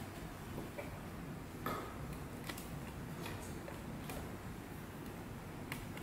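Scattered light clicks and ticks, about one every second, from handling the machine's casing and a screwdriver working its screws, over a low steady hum.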